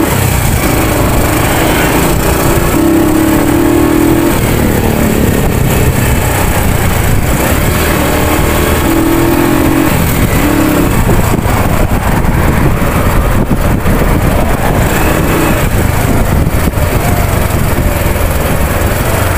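Motorcycle engine running at riding speed, mixed with heavy wind noise on the microphone. A steady engine hum comes and goes a few times.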